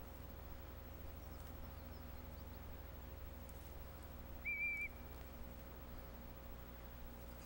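A single short, high whistled note with a slight waver, about halfway through, over a faint steady outdoor background.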